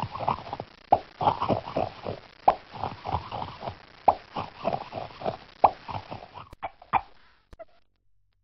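Cartoon plop sound effects: a rapid, irregular string of short popping plops for about six seconds, then three single plops before it stops.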